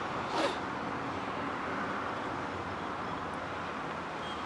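Steady road and engine noise of a vehicle driving along a highway, heard from inside the cab.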